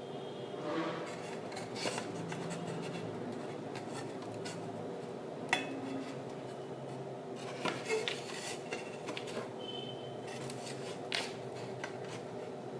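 Scattered light clinks and taps of glass plates and a steel tray being handled, about half a dozen, the sharpest about halfway through, over a steady low hum.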